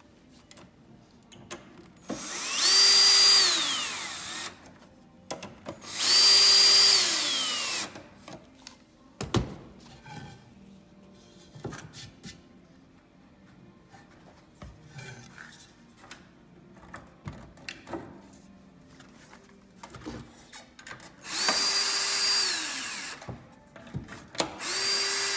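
Ryobi cordless drill-driver run four times in short bursts, driving bolts into a chair leg. Each time the motor whine comes up quickly, holds at a steady pitch, then slides down as the trigger is let go. Light knocks and one thump come from handling the wood between runs.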